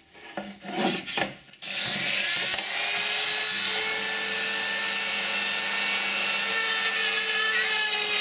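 Silverline rotary tool on its flex-shaft drive, running and boring a pilot hole through the plywood cupboard panel. It starts about a second and a half in, a steady motor whine over the grinding noise of the bit in the wood, dipping slightly in pitch near the end.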